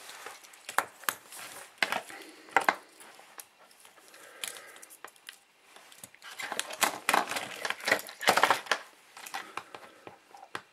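Scattered clicks, taps and rustles of hands handling a small plastic drone, paper and soldering tools on a tabletop, with a busier run of taps about seven to nine seconds in.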